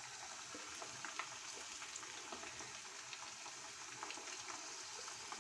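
Chicken pakodi pieces deep-frying in hot oil in a kadai: a steady sizzle with small scattered pops.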